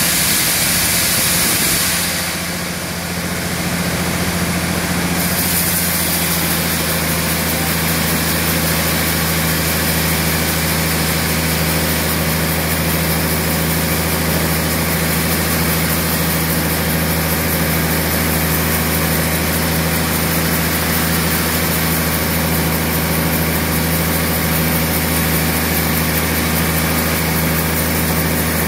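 Large band-saw mill running with a steady deep hum and a constant high hiss. The sound dips briefly about two seconds in, then settles back to the same steady level.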